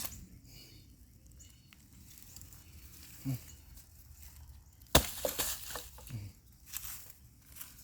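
A log dropped onto a brush pile: one sharp thud about five seconds in, followed by crackling and rustling of twigs and branches.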